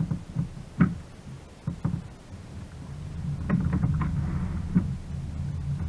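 Knocks and handling noise on a fishing kayak over a steady low rumble while a hooked fish is played alongside. There is a short splash from the fish thrashing at the surface a little after four seconds in.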